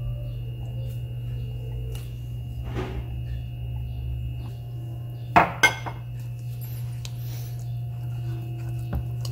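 Silicone spatula scraping sourdough starter out of a glass jar into a plastic mixing bowl, with two sharp clinks of the glass jar a little past halfway, a few fainter knocks, and then stirring of the wet dough.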